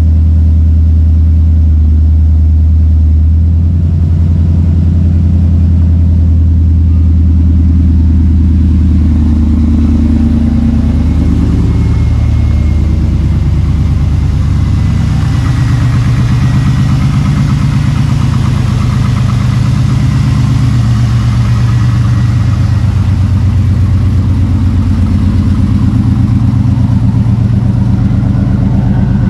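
Chevrolet Camaro Z28's LS1 V8 running on its own fuel pump and fuel pressure, mostly idling steadily, with the engine note shifting a little about halfway through.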